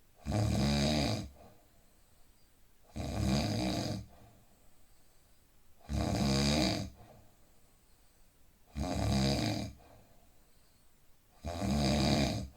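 A man snoring in deep sleep: five snores about three seconds apart, each about a second long, with quiet gaps between.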